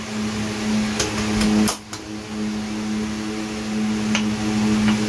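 A steady machine hum that drops out for a moment about two seconds in, with a few light clicks.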